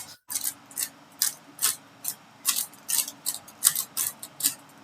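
A 3x3 Rubik's cube being turned quickly during a speedsolve: a rapid, uneven run of sharp plastic clicks, a few each second.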